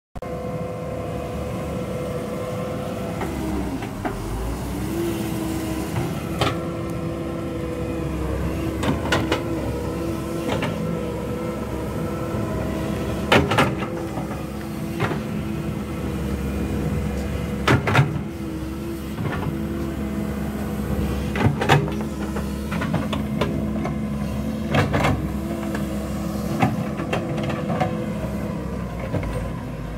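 Doosan DX140W wheeled excavator's diesel engine running steadily under hydraulic load while it digs, with a slight rise in pitch about five seconds in. Sharp clanks from the bucket and boom linkage come at irregular intervals, a dozen or so, the loudest around the middle.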